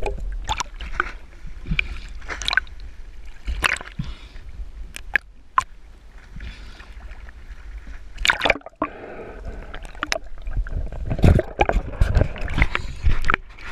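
Seawater sloshing, gurgling and splashing around a camera at the surface as it dips under and breaks back out, with a low rumble and irregular sharp knocks of water against the camera, heaviest about eight seconds in and near the end.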